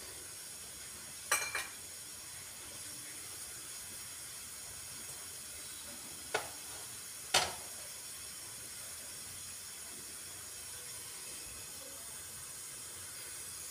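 Cooking oil heating in a kadhai on a gas stove, with a faint, steady sizzle. A few sharp clinks of steel utensils come about a second and a half in and twice between six and seven and a half seconds in.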